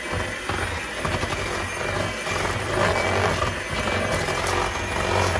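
Electric hand mixer running steadily, its beaters churning thick cream cheese batter for a cheesecake.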